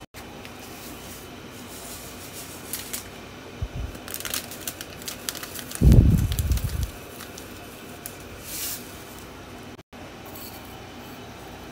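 Handling sounds as chia seeds are sprinkled from a small dish over a smoothie: light clicks and crackles over a steady low hum, with a dull thump about six seconds in.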